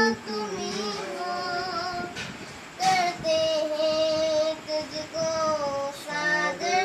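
A boy singing a Hindi Christian hymn solo, in long held phrases with a short break about two seconds in before the next phrase.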